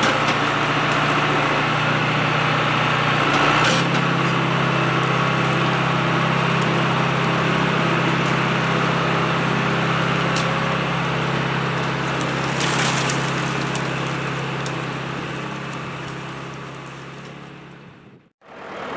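A John Deere 2750 farm tractor's diesel engine running steadily, its note shifting slightly about four seconds in, then fading away near the end.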